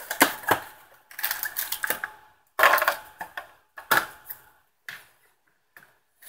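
Plastic phone packaging being handled: the white plastic tray and clear plastic wrappings crinkle and rattle in irregular bursts, with short pauses between them.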